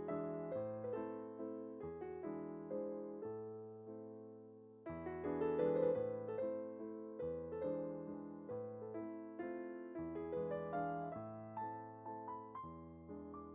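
Background piano music: a gentle melody over steady bass notes.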